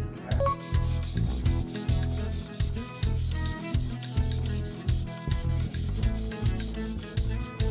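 Steel blade rubbed back and forth on a whetstone in repeated sharpening strokes, over background music.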